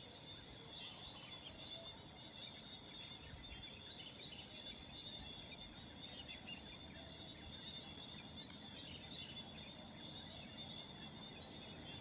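Faint outdoor morning ambience of birds chirping, with a steady high-pitched drone behind it.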